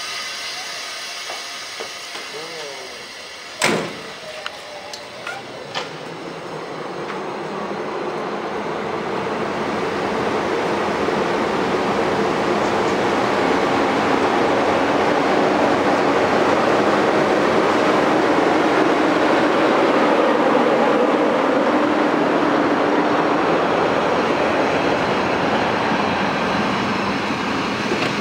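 PKP EP07 electric locomotive starting a passenger train away from the platform and drawing its coaches past. The rumble of the wheels builds steadily as it gathers speed, then holds loud. A single sharp clank comes about four seconds in.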